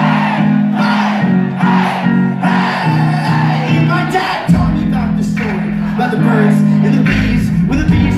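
Live band playing a song's opening, with held low chords and a voice over them; a deep bass end comes in about halfway through.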